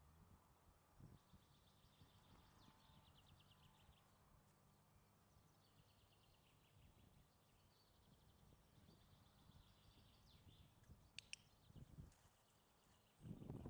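Near silence with faint trilling bird song, and a sharp double click of a dog-training clicker about eleven seconds in.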